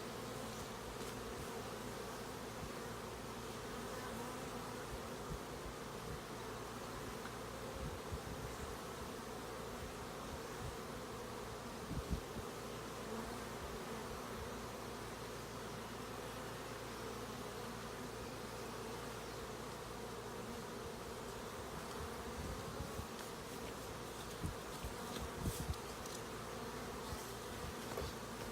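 Honeybees buzzing steadily around an opened hive, with a few faint knocks about halfway through and near the end.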